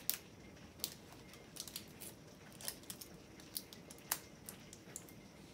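Small crinkles and clicks of a plastic-wrapped LOL Surprise Lil Sisters toy ball being picked at and peeled open by hand, in irregular sharp snaps, the sharpest right at the start and about four seconds in.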